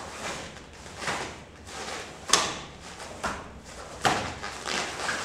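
Sharp snaps and thuds of a karate kata being performed: a cotton gi snapping with each strike and bare feet landing on a foam mat, several in all, about a second apart.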